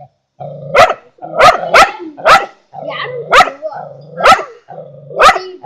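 Dog barking repeatedly at a large snake: about seven sharp, loud barks at uneven intervals, with a low rumble between them.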